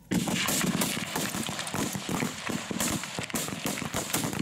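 Rifle fire from many shooters along a firing line: a dense, irregular crackle of shots.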